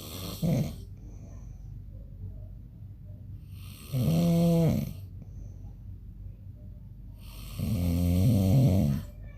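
A man snoring in his sleep: two long snores about four seconds apart, each lasting a second or more, with the brief end of another right at the start.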